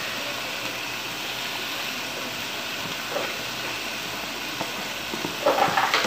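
Seasoned chicken pieces sizzling in a large aluminium pot on a gas stove, a steady hiss. Near the end come a few light knocks as chopped coriander is tipped into the pot.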